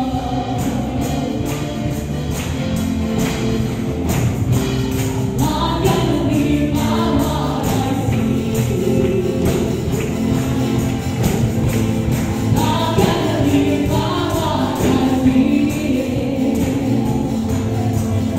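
Live worship band music: singers over electric and acoustic guitars, with hand tambourines shaken in a steady beat.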